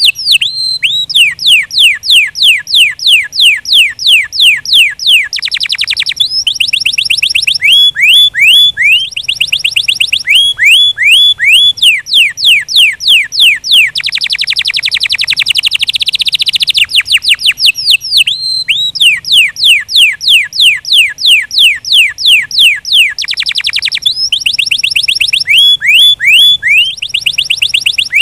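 Domestic canary singing: a loud, continuous song of rapid trills made of repeated falling notes, switching between very fast rolls and slower runs of separate notes, phrase after phrase with brief gaps.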